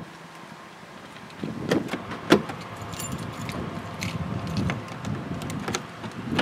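Keys jangling, with a string of sharp clicks and knocks, the loudest about two seconds in, as a hand works a pickup truck's door handle.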